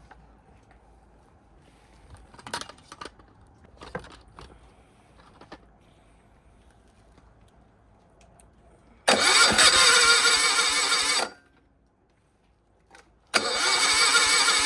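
A high-speed power tool runs in two bursts, a few light clicks and knocks before it. It spins up and runs for about two seconds, cuts off, then starts again near the end.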